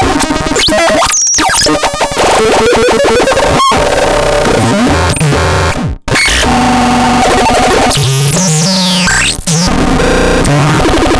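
WUZBRUCHT SP-161 putting out harsh, chaotic electronic noise: shifting buzzing tones, rapid stutters and sweeping squeals. It cuts out for an instant about six seconds in, then resumes.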